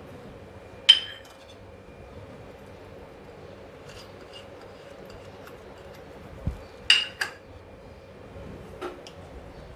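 Steel kitchenware clinking against a stainless steel mixing bowl as chopped ingredients are tipped in from a small steel bowl: a sharp clink about a second in, then two more in quick succession near seven seconds and a lighter one just before the end.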